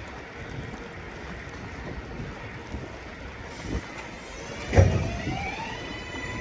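A New York City 4 train's electric propulsion starting up: after steady outdoor noise there is one loud thump about three-quarters of the way through, then a rising whine of several tones together that levels off as the train gets under way.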